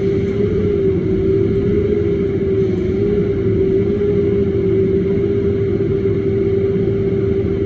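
CAT 501 HD mini excavator running, a steady engine rumble under a strong whine that wavers slightly in pitch.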